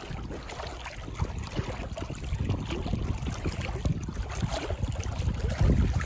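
Wind buffeting the microphone over choppy water, with water sloshing and lapping at the surface; a stronger gust comes just before the end.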